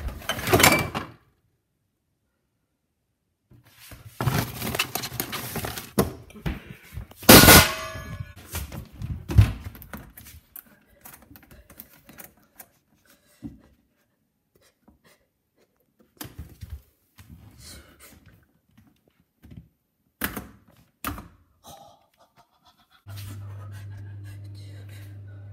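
Handling of kitchen appliance doors and drawers: scraping, clatter and knocks, with one loud thunk about seven seconds in, then scattered light clicks. Near the end a steady low hum starts suddenly.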